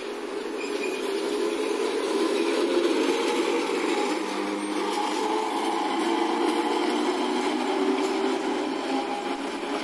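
Toyohashi Railway streetcar running along its street track: a steady rumble and rail noise, growing louder over the first couple of seconds and then holding, with road traffic mixed in.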